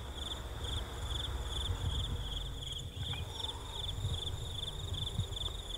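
A cricket chirping steadily: a high-pitched chirp repeated evenly, about three times a second.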